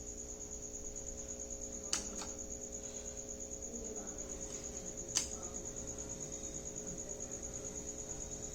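A cricket chirping steadily in a fast, even trill over a low electrical mains hum, with two sharp clicks about two and five seconds in.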